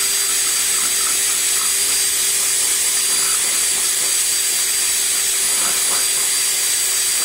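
Electric drill running steadily at full speed, its bit worked back and forth in a slat to elongate a hole.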